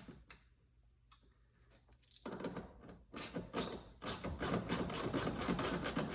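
Rapid ratcheting clicks and rattle from about two seconds in, some four or five strokes a second, as a hand ratchet tightens the speaker bracket's fasteners in a car door. A single sharp click comes at the very start.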